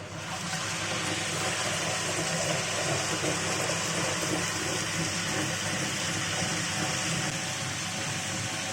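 Electric wet grinder running steadily with a low hum, its stone rollers churning soaked parboiled rice and poured-in liquid into batter.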